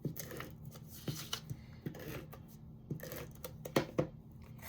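A Stampin' Seal adhesive tape runner being run over cardstock, giving short clicks and rasps about once a second amid light paper rustling.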